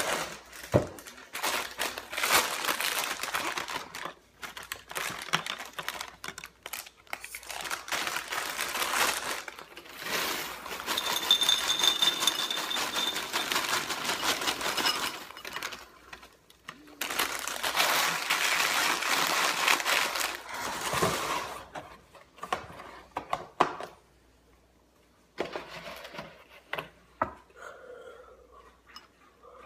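Plastic cereal-box liner crinkling as it is pulled out and opened, and dry cereal pouring from it into a bowl with a crackling rattle. The noise dies down about 22 seconds in, leaving a few quieter knocks as a plastic milk jug is handled.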